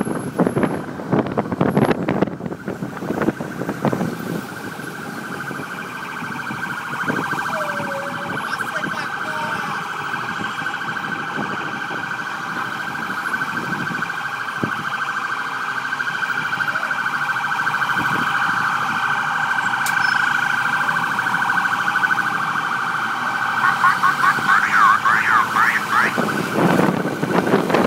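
Emergency vehicle siren sounding continuously over road noise. Near the end it switches to a fast yelp, sweeping up and down several times a second.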